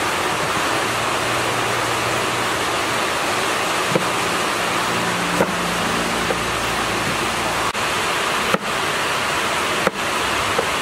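Steady rushing noise of running water, with a few brief light knocks.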